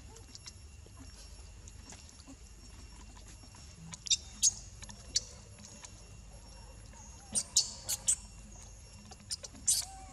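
Baby macaque giving short, high-pitched squeals in a few clusters, about four seconds in, again later, and just before the end.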